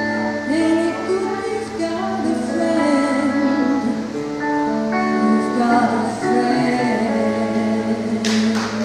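A woman singing, accompanied by electric guitar, playing the closing bars of a ballad. Audience applause breaks out suddenly near the end.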